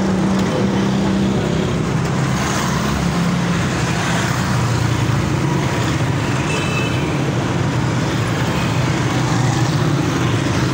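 Busy road traffic with motorcycle engines running close by in a steady hum, and a brief high-pitched beeping about six and a half seconds in.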